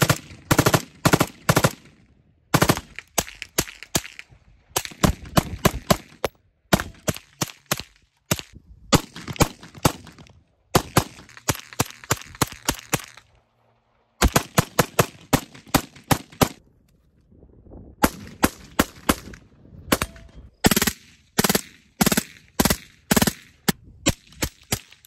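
AR-15-style carbine fired in rapid strings of semi-automatic shots, several a second, with short pauses between strings.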